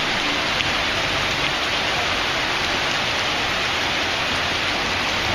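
Steady, heavy rain pouring down onto a street.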